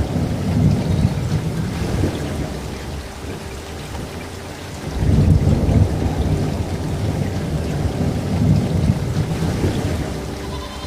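Thunder rumbling over steady rain, with deep rolls swelling near the start, about five seconds in, and again about three seconds later.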